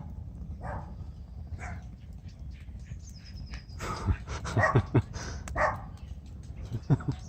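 Dog barking in short, separate barks, a few at first and a denser run about four to six seconds in. These are alert barks at people passing on the path outside the fence.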